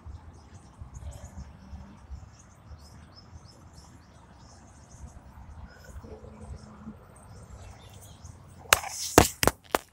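Birds chirping faintly over a low steady outdoor rumble, then a few sharp, loud knocks near the end.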